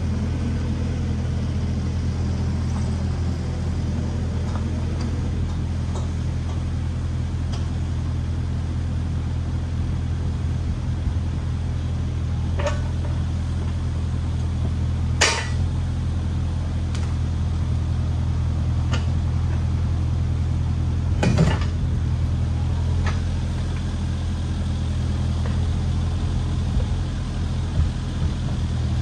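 Kubota KX057 mini excavator's diesel engine running steadily while it tears into a fiberglass boat, with a few sharp knocks and cracks, the loudest about halfway through and again about two-thirds of the way in.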